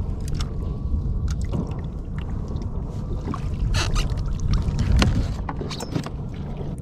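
Choppy low rumble of wind and sea around a fishing kayak, with scattered knocks, clicks and splashes as a fish is netted and lifted aboard, busiest about two thirds of the way through.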